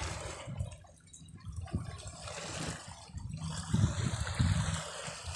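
Small waves washing and splashing against shore rocks, the wash swelling about two seconds in, with low rumbling thumps underneath.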